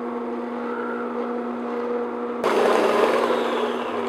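Electric stand mixer beating thick cream cheese frosting with a flat beater in a glass bowl: a steady motor hum that turns suddenly louder and rougher about two and a half seconds in, as the speed goes up to medium-high, then starts to wind down at the end.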